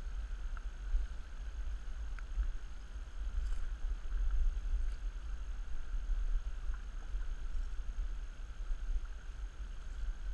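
Wind buffeting the microphone of a GoPro action camera: a continual, unsteady low rumble, with a few faint ticks above it.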